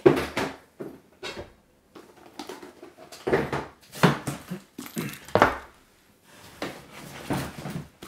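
Boots being handled: irregular knocks and thumps with short rustling as one pair is set down and the next boot is picked up.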